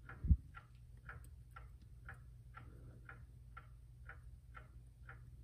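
A mechanical clock ticking steadily, a little over two ticks a second, with one low thump just after the start.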